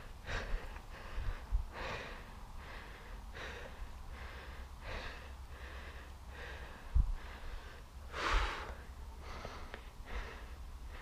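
Rhythmic, breathy puffs, about one every three-quarters of a second, like heavy breathing close to the microphone, with one louder puff about eight seconds in.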